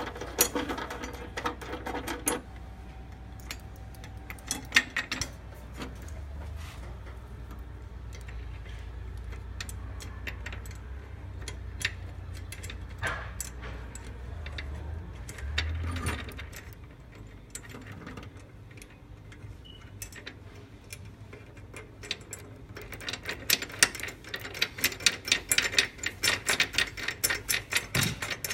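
Socket ratchet clicking as bracket nuts are wound on. There is a burst of rapid clicks at the start, scattered metal taps through the middle, and a longer run of quick, even clicks near the end.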